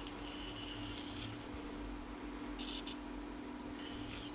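Faint high whir of a miniature 1/87-scale RC truck's tiny electric motor and gears as it drives, over a steady low hum; a little past halfway comes a short, louder high-pitched buzz, twice in quick succession.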